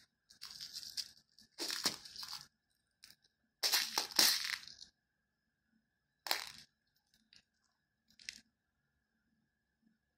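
Handling noise from beadwork: a few short rustles and small clicks of fingers working crystal and seed beads onto monofilament fishing line over paper plates, the loudest about four seconds in.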